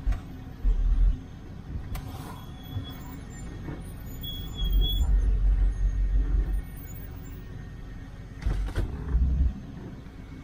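A car driving slowly, heard from inside the cabin: a steady low rumble that swells louder several times, with a few sharp clicks.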